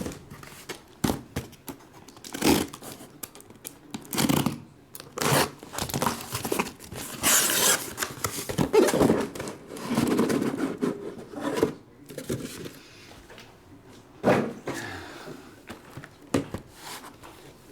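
Hobby boxes of trading cards being shuffled, slid and knocked together on a table, with a stretch of tearing and crinkling of wrapping about seven seconds in.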